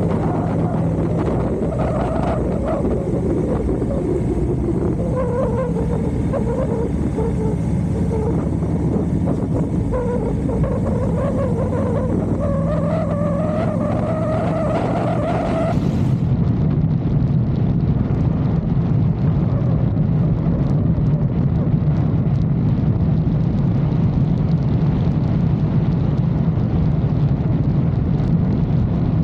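Motorcycle engine running under way, with a steady rushing noise. The engine note climbs gradually for several seconds as it picks up speed, then the sound changes abruptly just past halfway and turns duller and heavier.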